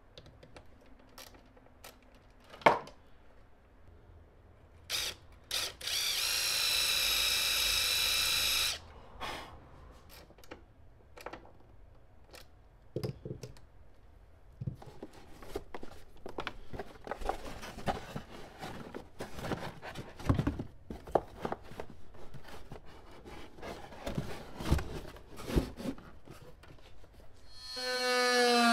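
Power drill running with a steady high whine for about three seconds, while the ground-bolt point in the car's sheet-metal floor is being prepared. Around it come scattered clicks and a sharp knock, then a long run of small clicks and scrapes from hand-tool work. Just at the end a lower-pitched motor starts up.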